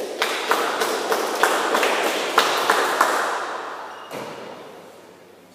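Table tennis rally: the ball clicks sharply off the paddles and the table about three times a second, echoing in a large hall. It stops about three seconds in as the point ends.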